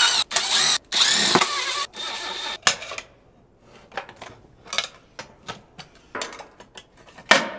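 Cordless drill-driver backing screws out of a steel battery case, its motor running in several short runs over the first three seconds with the pitch rising and falling. After that come quieter clicks and taps of handling, and one sharp knock near the end.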